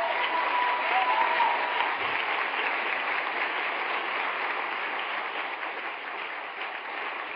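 Large audience applauding: dense, steady clapping that is loudest at first and slowly tapers off.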